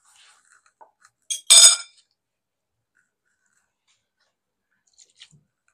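One sharp metallic clink with a short ringing tail, kitchenware knocking against the steel cooking pot, about a second and a half in. A few faint soft taps follow near the end.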